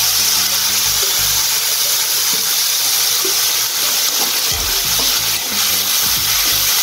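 Water poured into a hot metal kadai of sautéed potatoes and peas, sizzling against the hot pan, then a steel spatula stirring and scraping through the wet mixture. The water is added to dissolve sugar in the pan.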